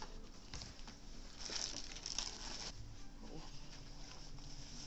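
Faint rustling and handling noises as a cardboard shipping box is picked up and passed across a table, with a louder stretch of rustling about a second and a half in.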